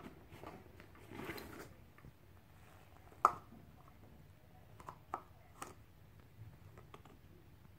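Small plastic stacking cups being handled and knocked together by a baby: a few light clicks, with one sharper knock about three seconds in, after a brief rustle about a second in.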